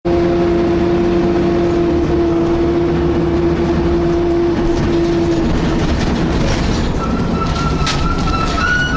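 Whine from an Alexander ALX300-bodied DAF single-deck bus, over the rumble of the engine and road: a steady mid-pitched whine that fades out about five and a half seconds in, then a higher whine from about seven seconds in that rises slightly. It sounds like a whining cooling fan, though its cause is unknown.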